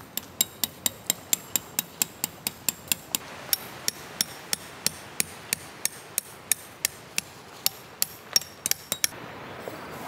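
Tent pegs being driven into gravel ground with a peg hammer: a steady run of sharp, ringing strikes, about three a second, that stops about nine seconds in.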